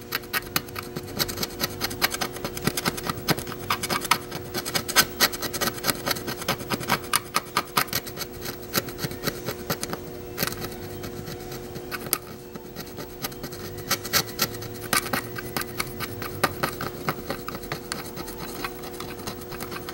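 Fine-tip screwdriver scraping and scratching the coating off a circuit board around a pad, a rapid run of small scratches that eases off for a moment near the middle. The tip is cutting down to bright bare copper so that solder will take.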